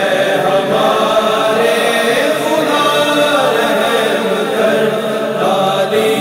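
A vocal chorus chanting a wordless, sustained interlude between verses of an Urdu devotional hamd, voices only.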